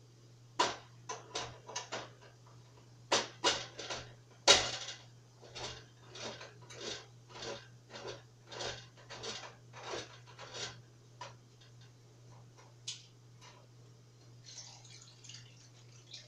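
Kitchenware clattering: a run of sharp clicks and knocks from utensils and containers at the stove. They come irregularly at first, then settle into a steady beat of about one and a half knocks a second for several seconds before stopping. A low steady hum runs underneath.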